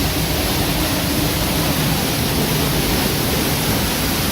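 Waterfall on a rain-swollen river pouring close by: a steady, dense rushing, heard from right beside and behind the falling water, making a fair racket.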